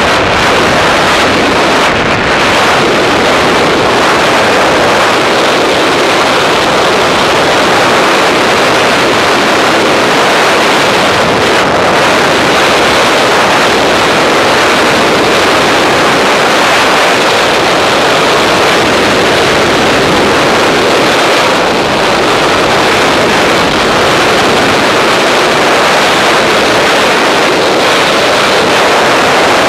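Freefall wind rushing over a camera microphone: a loud, steady blast of wind noise.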